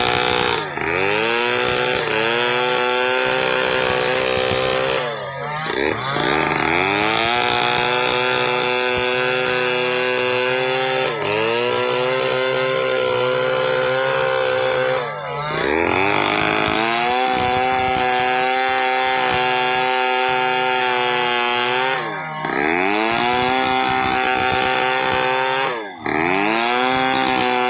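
Chainsaw at full throttle cutting lengthwise through a hard damar laut (ironwood) log. About five times the engine pitch drops and climbs back as the chain bogs in the hard wood and recovers.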